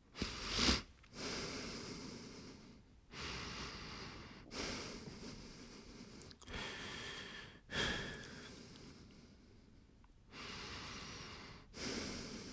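A man breathing slowly and audibly, in and out through the nose and mouth: about eight rushes of air, each lasting one to two seconds with short gaps between, the first one shorter and sharper than the rest.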